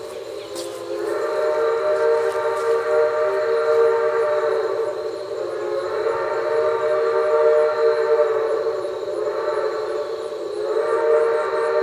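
4-4-0 American steam locomotive No. 98's logging three-chime steam whistle blowing long drawn-out blasts, the chord easing off and swelling again twice.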